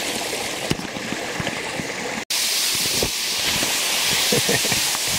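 A waterfall rushing: a steady, loud hiss of falling water, broken by a split-second dropout about two seconds in.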